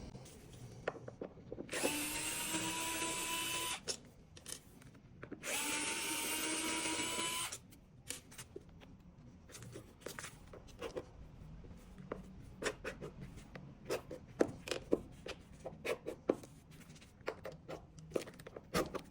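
Power screwdriver running twice for about two seconds each, backing out the switch plate's fixing screws, its motor pitch rising slightly as each run starts. Afterwards come scattered light clicks and knocks of screws and the plate being handled.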